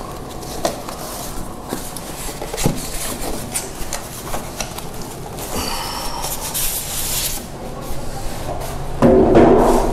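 Cardboard TV box being handled and its white plastic packing pulled out: rubbing and rustling with scattered light knocks, louder for the last second.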